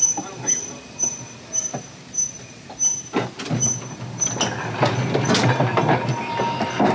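Brooklyn Rapid Transit streetcar 1792 rolling slowly past, its wheels knocking over rail joints, with the rumble of its trucks growing louder from about halfway in and a faint steady whine near the end. A high chirp repeats about twice a second through the first few seconds.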